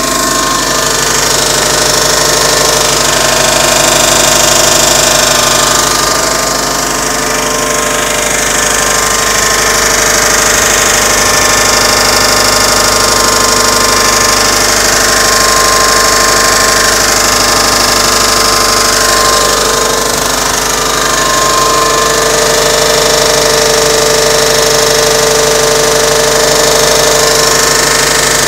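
2006 Subaru Legacy GT's turbocharged 2.5-litre flat-four boxer engine running steadily with a rapid clicking. The owner is unsure whether this is the usual boxer-engine tick or a sign of trouble.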